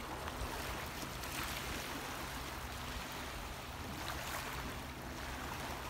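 Calm sea water lapping at a pebble shore: a steady, soft wash.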